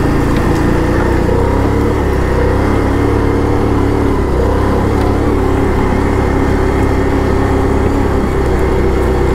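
ATV engine running steadily while riding, its pitch shifting only slightly.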